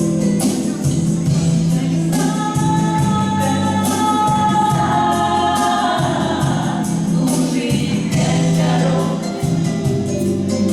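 Background music with voices singing long held notes over a steady, rhythmic accompaniment.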